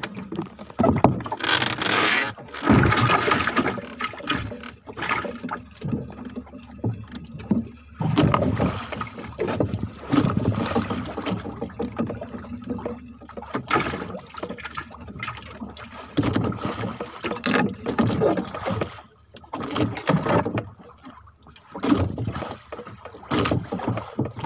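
Wet fishing handline hauled in hand over hand over the side of a small boat, in uneven noisy strokes about every second or two, with water flung off the line.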